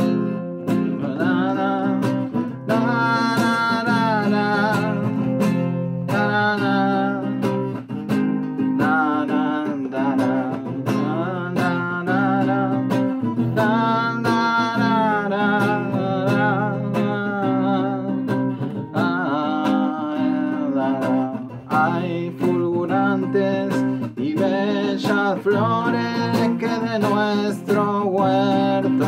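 Acoustic guitar strummed and picked steadily, with a man's voice singing over it.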